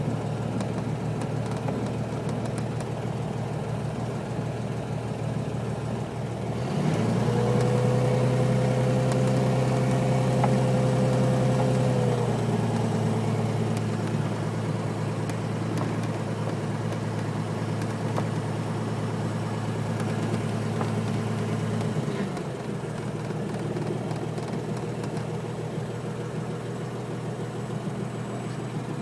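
Light aircraft engine running steadily. About seven seconds in the power comes up and the engine note rises and gets louder. It eases back a little around twelve seconds and again around twenty-two seconds.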